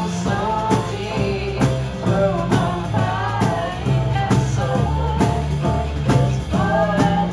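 Live rock band playing a passage between sung lines: drum kit keeping a steady beat over a sustained bass line, with a wavering, bending melody line on top.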